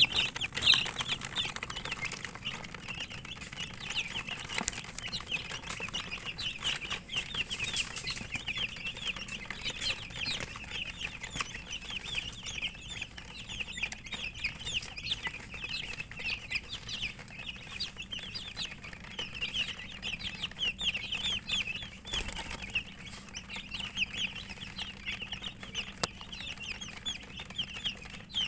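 A group of domestic chicken chicks peeping continuously, many short falling chirps overlapping, with scattered sharp clicks among them.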